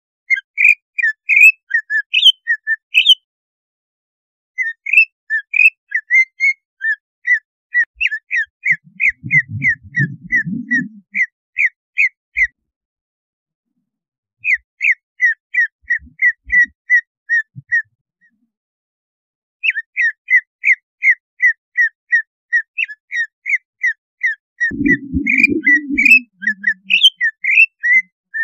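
Greater green leafbird (cucak ijo) song: long runs of sharp, repeated whistled notes, about three a second, in several phrases broken by short pauses. This is a provoking call meant to rouse other cucak ijo and make them aggressive. A low rumbling noise sounds under the song twice.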